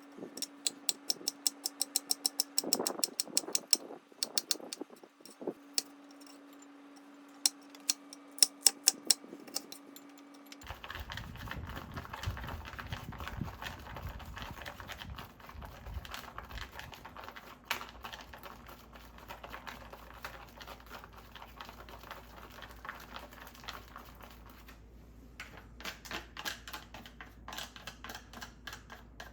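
Mechanical keyboard typing, a COX CF75 with orange switches: rapid crisp key clicks over a faint steady hum, then, about ten seconds in, an abrupt change to denser, softer typing over a steady background hiss.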